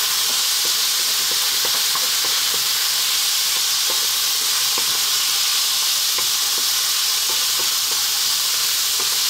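Cubed chicken, onion and peppers frying in oil in a pan, a steady sizzle, while a wooden spoon stirs them with scattered short scrapes and taps against the pan.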